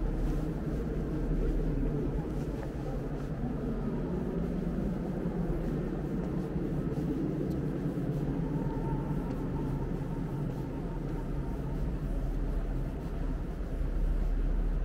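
Steady low rumbling ambience of a large underground salt-mine hall, with no distinct events standing out.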